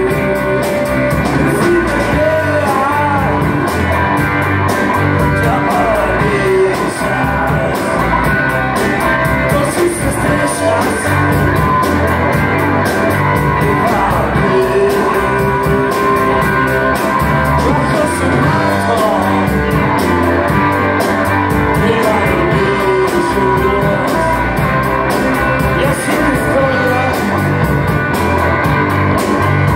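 Rock band playing live: distorted electric guitars, bass and drum kit with a sung lead vocal.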